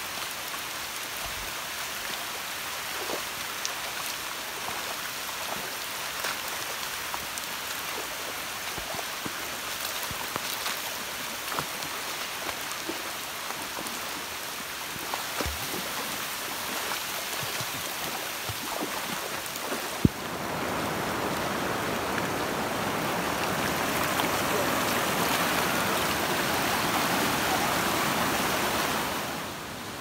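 Steady hiss of running water and rain, with scattered small clicks. About two-thirds of the way in, after a sharp click, a louder rushing of water takes over, then cuts off shortly before the end.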